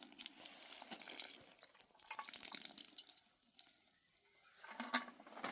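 Rainwater dripping: faint, irregular drips and ticks over a soft hiss of light rain.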